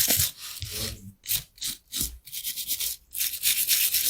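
Wire brush scrubbing corrosion off lead battery terminal posts: a run of quick, irregular scratchy strokes, with a longer stretch of steady scrubbing near the end.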